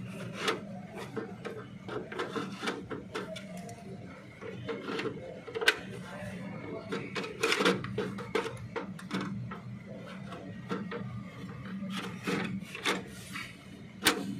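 Irregular clicks and rubbing: handling noise from a hand-held camera brushing among cables in an electrical cabinet. A steady low hum runs underneath, and the loudest click comes near the end.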